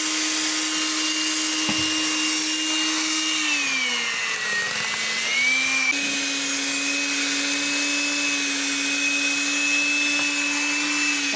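Electric hand mixer running steadily, its beaters working thick cake batter as milk is added. Its motor hum and whine dip in pitch for about two seconds near the middle, then settle a little lower.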